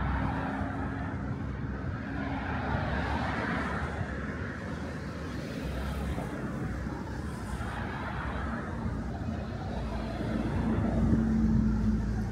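Steady road traffic noise, with a vehicle engine passing closer and louder near the end.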